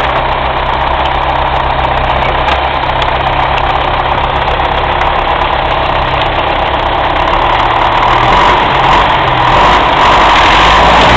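A diesel tractor engine running steadily, growing a little louder in the last few seconds.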